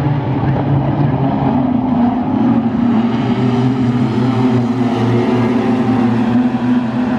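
A pack of wingless sprint car engines running loud and steady as the cars circle the dirt speedway together.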